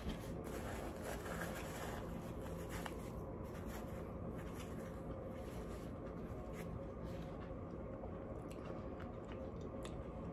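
Faint close-mouthed chewing of a soft biscuit, with small scattered clicks and rustles, over a steady low room hum.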